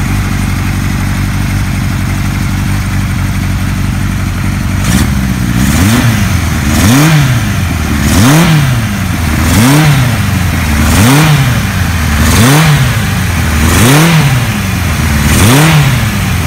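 1975 Kawasaki Z1 900's freshly rebuilt air-cooled inline-four engine running. It idles steadily for about five seconds, then is blipped repeatedly, rising and falling in pitch about every one and a half seconds.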